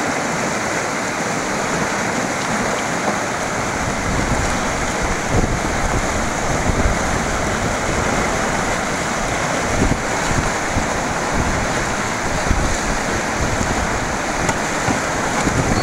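White-water river rapids rushing and churning in a steady loud wash of water noise, with scattered low thumps from about four seconds in.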